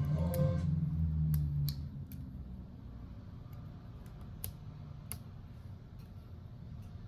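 Scattered light clicks and taps of small hand tools working on a smartphone's internal parts, a dozen or so, unevenly spaced.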